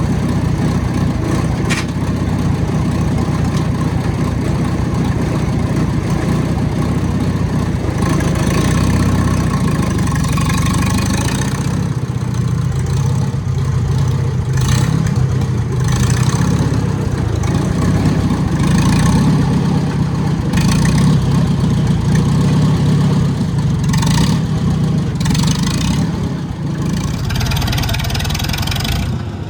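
Farmall Super C tractor's four-cylinder gasoline engine running steadily while the tractor is driven slowly, with rushes of hiss coming and going from about eight seconds in. The engine runs without the sticky-lifter tick, after a dose of Marvel Mystery Oil.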